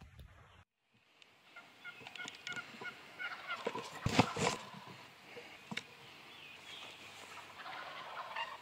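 Wild turkey gobbling: one loud, rapid rattling gobble about four seconds in. A run of short high chirps leads up to it.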